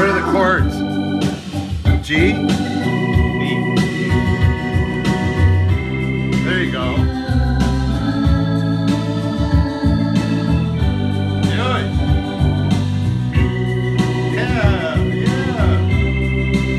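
Hammond organ played through a Leslie rotating speaker: held chords over a moving low part, broken several times by quick sweeping runs up and down the keys.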